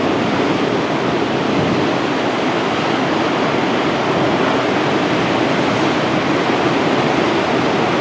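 Rough, storm-driven Atlantic surf breaking along the shore, a loud, steady rush of water.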